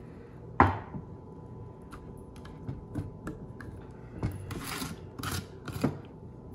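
A glass jar set down on a wooden cutting board with a sharp knock about half a second in. Then come scattered clicks and short scrapes as the jar and its lid are handled on the board.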